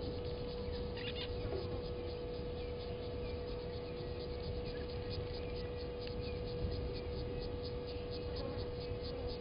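Outdoor bush ambience: an insect chirping in a steady rhythm of several short pulses a second, with a few faint bird chirps, a steady hum and a low rumble underneath.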